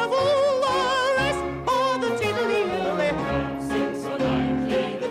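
Operatic singing in a high voice with wide vibrato: one long held note for over a second, then a phrase that steps and falls, over piano accompaniment.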